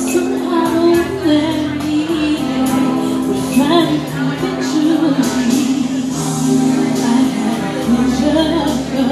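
A woman singing live into a handheld microphone over a recorded backing track with a steady beat. Her voice slides up and down in held, ornamented phrases.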